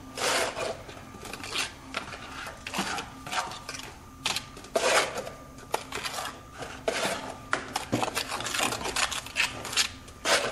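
Hand tool scraping and scratching against old brick in quick, irregular strokes: the wall being cleaned back to take new mortar.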